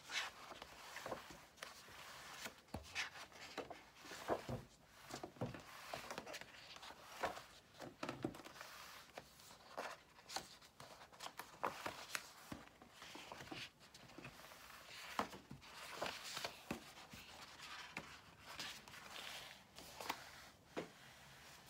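Thick sketchbook pages being turned and handled: irregular soft rustles, flaps and light taps of heavy paper, many times over.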